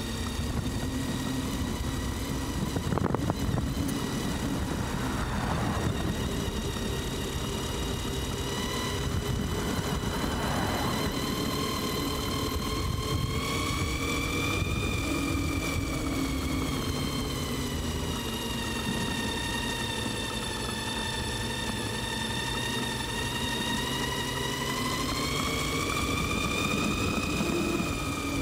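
CYC X1 Pro Gen 3 mid-drive electric motor whining under load as the ebike climbs a steep hill, its pitch gliding with speed and rising about halfway through and again near the end. A low rumble of wind and tyre noise runs beneath it.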